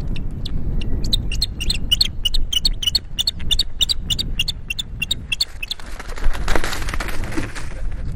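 Osprey alarm calls at an intruder: a rapid series of short, high chirps, about four or five a second, over a low rumble, ending in a brief rush of noise about six seconds in.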